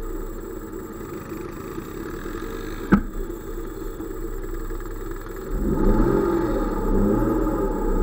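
Side-by-side UTV's engine running low and steady, then revving up and down from about two thirds of the way through as it pulls forward and takes up the tow strap. A single sharp click about three seconds in.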